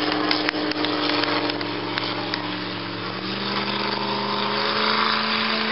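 A racing boat's outboard engine running at speed, a steady engine note that steps up slightly in pitch a little past halfway, with the hiss of spray off the hull.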